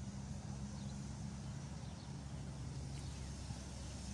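Steady low motor hum, with a few faint bird chirps over it.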